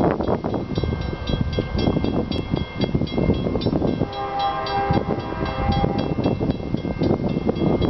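Level-crossing warning bell ringing rapidly, about five strokes a second, with wind buffeting the microphone. About four seconds in, a distant freight locomotive horn sounds one chord for about two seconds.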